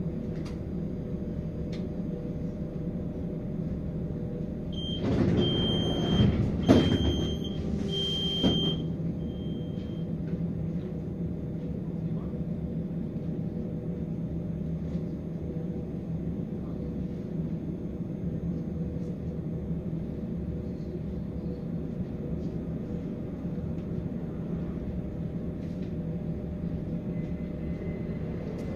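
Stoag NF6D low-floor tram with a steady electrical hum carrying a few fixed tones. About five seconds in, a high warning beep sounds on and off about once a second for some four seconds, with clattering and a thump near seven seconds, as of the doors closing.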